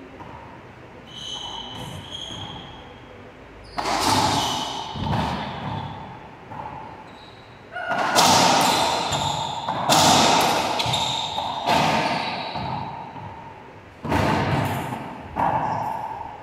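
Racquetball rally: sharp cracks of racquets hitting the ball and the ball slamming off the court walls, about nine strikes a second or two apart starting about four seconds in, each ringing on in the court's echo.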